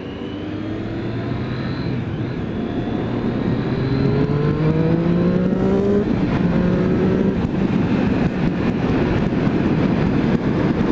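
Triumph Street Triple 675R's three-cylinder engine, on its stock exhaust, accelerating hard up to highway speed. Its pitch rises for about six seconds, dips with a gear change and climbs again, then a rising rush of wind on the helmet microphone takes over.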